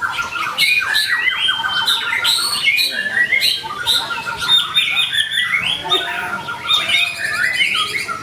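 White-rumped shama (murai batu) singing vigorously: an unbroken run of varied clear whistles, pitch glides and fast chattering trills.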